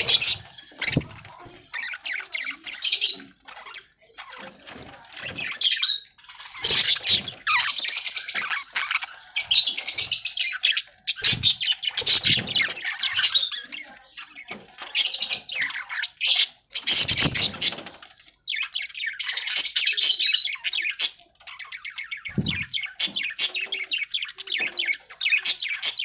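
A flock of budgerigars chattering, with overlapping high chirps and squawks in bursts that come and go every second or two. A few short low thumps fall among them.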